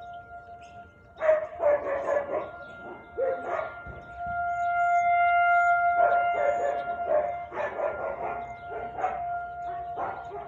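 Husky barking in repeated clusters of short barks, with a long steady howl held from about four to six seconds in.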